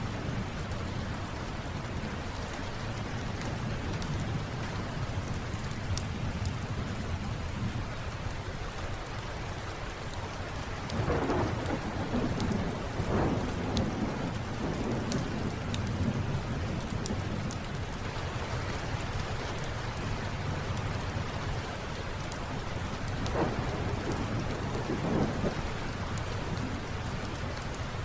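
Steady rain with rolling thunder that swells about eleven seconds in and again near the end, over scattered light ticks.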